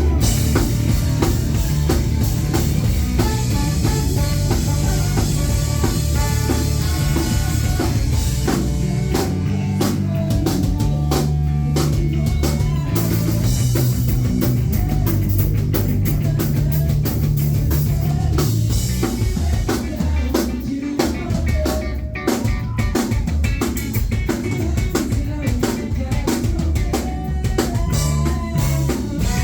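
Live rock band playing, the drum kit most prominent with snare and kick over a heavy bass line.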